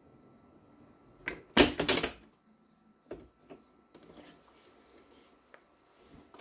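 Mighty Hoop magnetic embroidery hoop clamping shut onto a polyester polo: a light click about a second in, then a loud clatter of snaps as the magnets catch the frame. A few soft taps and fabric rustling follow as the hooped shirt is handled.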